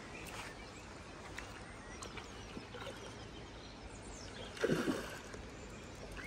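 Low, steady lakeside background with one brief splash about four and a half seconds in: a hooked trout thrashing at the surface while it is played on a fly line.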